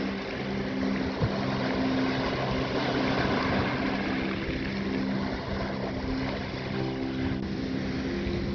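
Seaside noise: waves and wind buffeting the microphone, with a few low sustained tones underneath.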